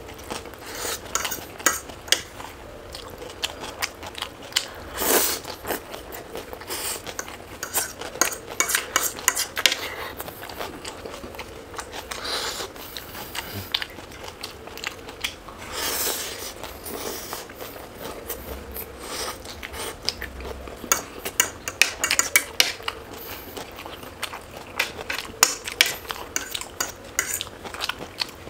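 Close-up eating sounds: cutlery clinking and scraping on dishes, mixed with bites and chewing, as many short sharp clicks throughout.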